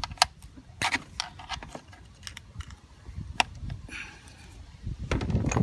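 Scattered light clicks and taps as hands and a tool twist and wiggle a VANOS solenoid that is stuck in the engine.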